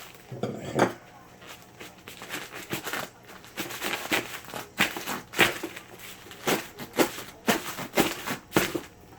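A package being cut and torn open with a blade: a run of sharp, irregular scrapes, rips and rustles of packaging being handled.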